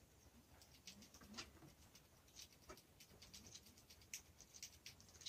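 Near silence, with faint scattered ticks and clicks.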